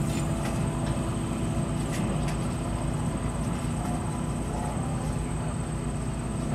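The diesel engine of a 1948 GE 25-ton locomotive running steadily with a low drone as the locomotive moves slowly away along the track.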